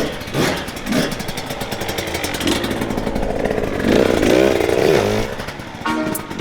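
Two-stroke engine of a Husqvarna TC125 motocross bike converted to 150 cc, with a new cylinder and piston, revving up and down repeatedly as it is ridden. The loudest rev is about four seconds in.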